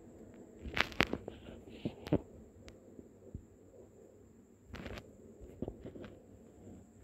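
A few scattered soft knocks and clicks, the loudest about a second and two seconds in, with a short rustle near five seconds, over a faint steady hum.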